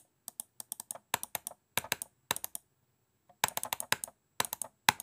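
Computer keyboard typing in quick runs of sharp key clicks, with a short pause about halfway through. It is a typing sound effect timed to on-screen text appearing letter by letter.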